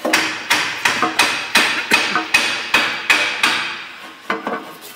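Repeated knocks on a Saab B204 engine's aluminium sump as it is driven up onto the block and its locating dowels, about three strikes a second, each with a short metallic ring, thinning out near the end.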